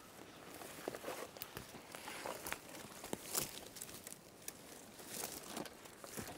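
Faint, irregular rustling and crackling of forest-floor litter (needles, moss and twigs) being disturbed, with scattered small snaps.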